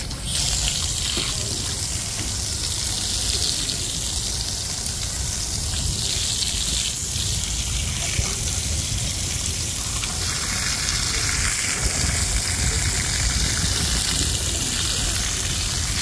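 Steady rushing water with a deep rumble underneath, growing a little brighter about ten seconds in.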